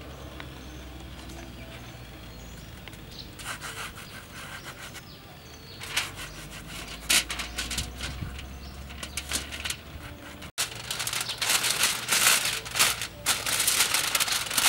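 Foil bag crinkling and rustling as it is handled, in dense loud bursts over the last four seconds. Before that, softer scattered crackles of fingers pressing a crisp grilled honeycomb on aluminium foil, over a low steady hum.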